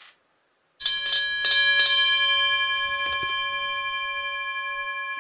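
A metal bell struck several times in quick succession about a second in, with a few lighter strikes around three seconds in, then ringing on in a clear tone of several steady pitches that fades slowly.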